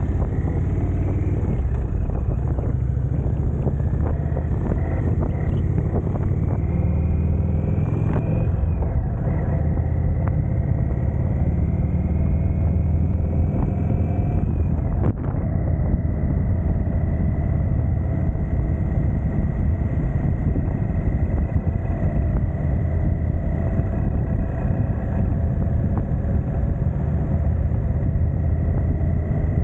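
Indian Thunderstroke 111 air-cooled V-twin motorcycle engine running steadily. A thin high tone slowly rises twice in the first half, then holds level, and there is one sharp click about halfway.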